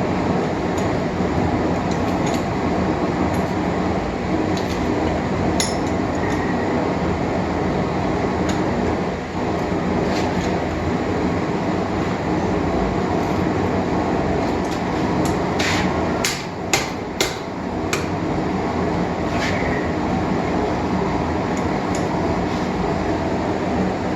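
Steady roar of a running forge, with scattered metal clinks and a quick run of about five sharp metal strikes about two-thirds of the way through, as the hot axe's off-centre eye is straightened in a vise.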